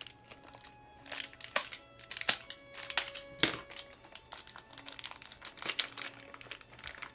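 Plastic wrapping around a silver coin crinkling and rustling in irregular bursts as it is handled and opened, over quiet background music with held notes.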